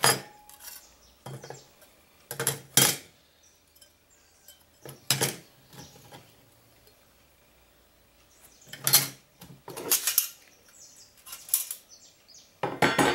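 Stainless-steel plates and grates of a flat-pack wood-burning camp stove being handled and laid on one another: irregular sharp metal clinks and clanks, with a quiet gap of a few seconds near the middle.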